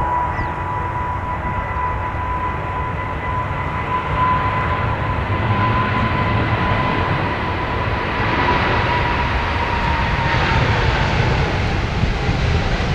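Boeing 777-200 jet engines at take-off power: a steady high whine over a broad rumble. The rumble grows louder in the second half, and the whine drops slightly in pitch around ten seconds in.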